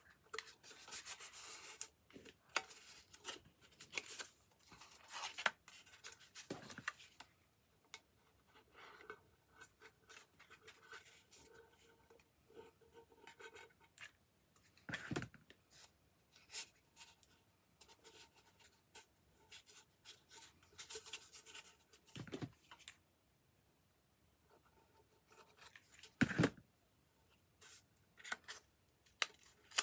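Stiff, thick textured paper rustling and rubbing as it is wrapped and pressed around a small tin can, with scattered scrapes and a few soft knocks from handling the can.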